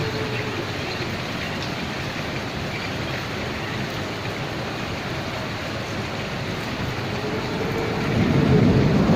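Steady rain falling, with a low rumble of thunder building up near the end.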